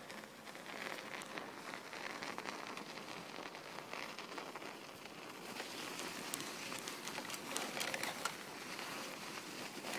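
Footsteps crunching on packed snow, an uneven run of small crackles and crunches.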